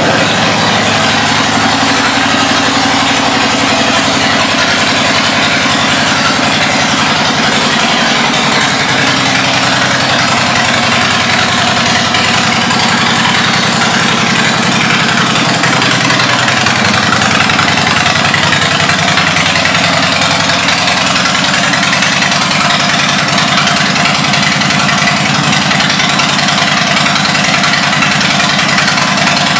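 Harley-Davidson Dyna Street Bob V-twin engine idling steadily through aftermarket exhaust pipes.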